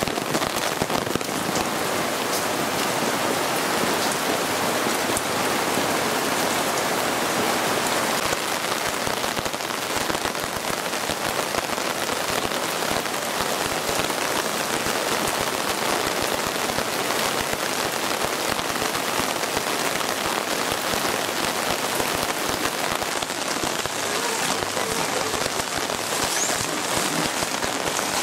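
Heavy rain falling steadily on a wet patio and garden plants.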